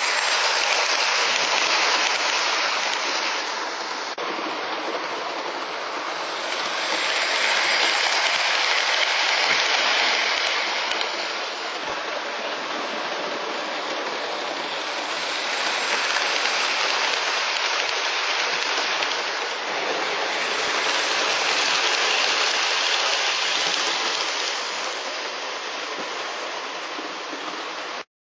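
Hornby OO-gauge live steam locomotive running, giving a steady hiss of steam that swells and fades about every seven seconds.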